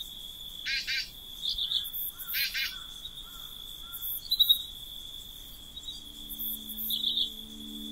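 A steady high-pitched cricket trill with a few short bird chirp phrases about one and two and a half seconds in. A soft sustained music chord fades in about six seconds in.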